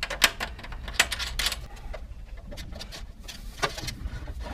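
Small metal clicks and rattles of a Romex cable connector being fitted into a knockout in a steel breaker panel, with a few sharper clicks, the loudest about a quarter second in. Softer rubbing of cable being fed through the connector follows.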